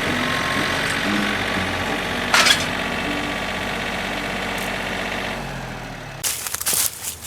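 An engine idling steadily, dying away about five seconds in, followed by a short burst of clattering and rustling.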